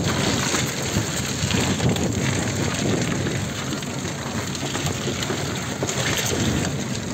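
SUV driving slowly over a rutted mud track, heard from an open side window: a steady mix of engine running and tyre and body noise over the rough ground, with wind buffeting the microphone.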